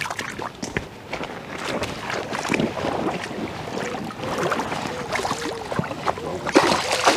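River water sloshing and splashing in a shallow, fast flow as a barbel is returned by hand, with a bird cooing in the background in the second half.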